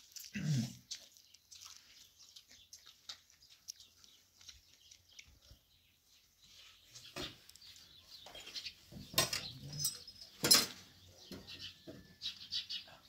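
Small crunches and nibbling clicks of people biting kernels off corn on the cob, with a couple of louder sharp knocks about nine and ten and a half seconds in.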